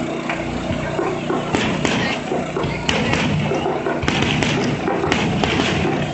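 Fireworks display: aerial shells bursting in a run of bangs and thuds at irregular intervals, growing denser after about four seconds, with people talking in the background.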